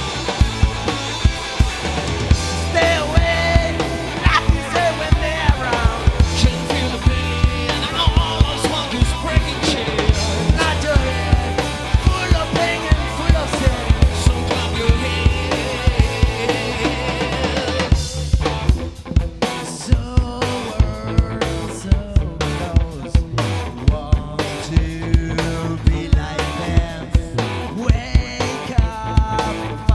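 Rock band playing live: drum kit, bass and guitars. A wavering lead melody runs over the full band at first, and about 18 seconds in the texture thins to mostly drums and bass with steady, regular hits.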